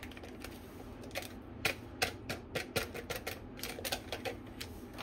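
A run of sharp, irregular light clicks and taps, about three or four a second, starting about a second in: small kitchen items being handled over a glass pot while ingredients are added.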